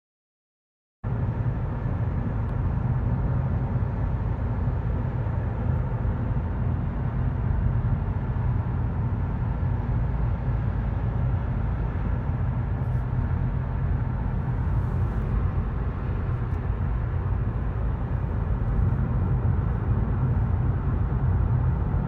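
Steady low rumble of road and engine noise inside a moving car's cabin, starting about a second in.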